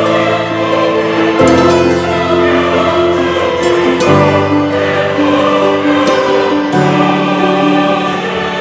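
Background music of slow, held chords that change every couple of seconds.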